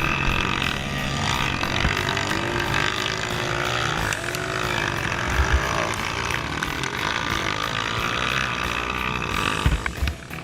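Dirt bike engine revving, its pitch rising and falling as the throttle opens and closes, with a few sharp knocks near the end.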